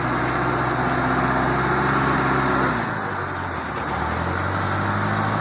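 Small pickup truck's engine running under load while the truck, stuck on a slippery slope, fails to climb. The pitch drops a little about halfway through, then holds steady.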